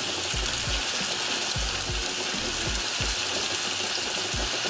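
Chicken breasts and sliced onion, carrot and mushrooms sizzling steadily in hot oil in a stainless steel frying pan as the breasts are laid in.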